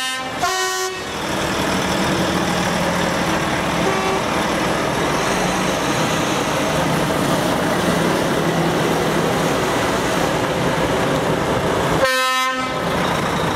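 Diesel Volvo tractor units driving slowly past one after another, their engines running steadily, with truck horn blasts near the start and about 12 seconds in, and a short toot about 4 seconds in.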